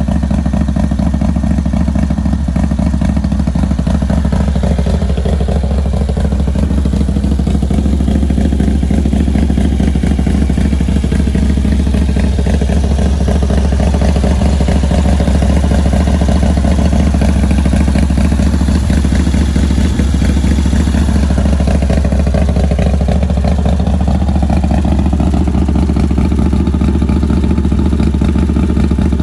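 Harley-Davidson FXR's 110 cubic inch Twin Cam V-twin engine idling steadily.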